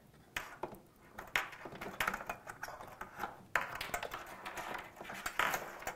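Banana-plug test leads being handled and pulled out of the jacks of a metal circuit box: a string of irregular clicks and short rattles of plugs and cables.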